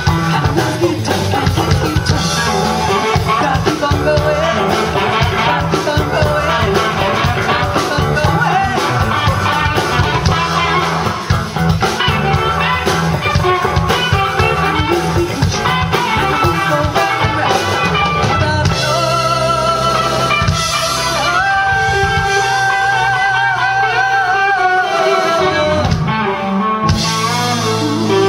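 Live rock band playing: drum kit, electric guitars and bass together. About two-thirds of the way through the drums thin out and a lead line holds long, wavering notes.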